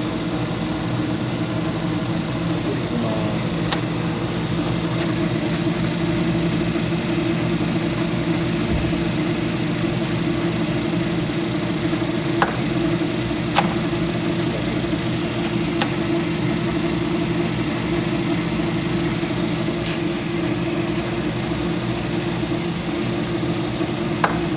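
Eguro GL-120 lathe running steadily, its motor and spindle giving an even hum, with a few light clicks.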